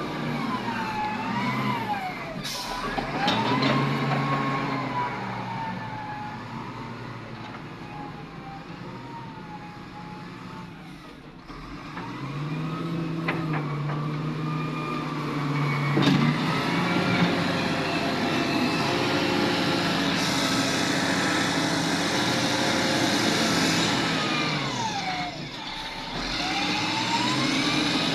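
Hydraulic excavator working: its diesel engine revs up and down under load, with a hydraulic whine that rises and falls as the arm moves. A few sharp knocks come through, and it grows louder about halfway through.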